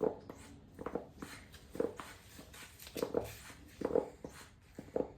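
Hand bulb of a blood pressure cuff squeezed again and again, about once a second, six short pumps that inflate the cuff.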